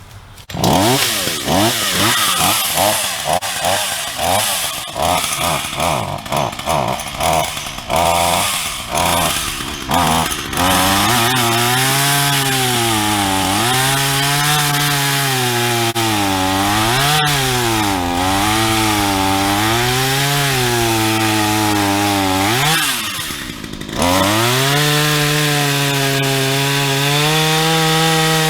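Black Max 38cc two-stroke chainsaw running roughly with repeated throttle blips for about ten seconds. It is then held at high revs, its pitch sagging and recovering again and again as the chain cuts into the tree trunk. The revs dip briefly about 23 seconds in, then climb again.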